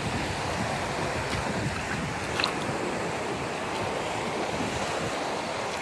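Small waves washing over a pebble shore in a steady hiss, with some wind on the microphone and a few faint clicks.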